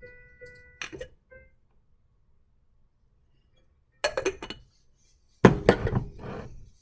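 Hard objects clinking and knocking together in a few separate clusters of strikes, some followed by a short ringing tone.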